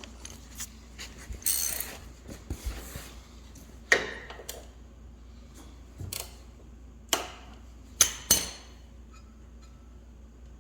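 Hand tools clinking and knocking on metal while working at a generator carburetor: a string of separate sharp clanks with a short scrape, the loudest about four seconds in and two close together near the end.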